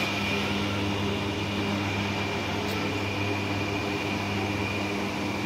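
Steady electric-motor hum, with a thin, even high whine above it.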